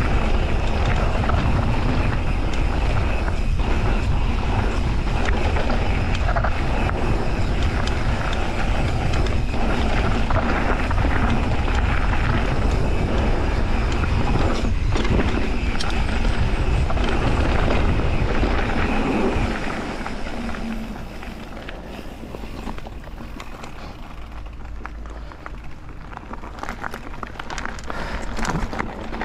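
Mountain bike rolling down a dirt and gravel trail: a steady rush of wind on the microphone and tyre noise, with frequent clicks and knocks from the bike over the rough ground. The noise drops much quieter about two-thirds of the way through, then builds again near the end.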